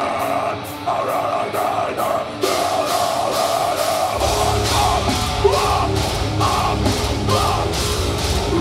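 A deathcore band plays live through a PA, with distorted guitars and a drum kit. It opens with a lighter passage of held guitar and steady ticks, about three a second. The drums come in hard about two and a half seconds in, and from about four seconds the full band hits with heavy low bass and kick drums.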